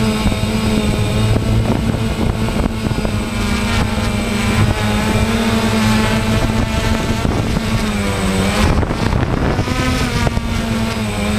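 DJI Phantom quadcopter's propellers and motors whining steadily with wind on the microphone; the pitch sags for about a second near the end and then climbs back.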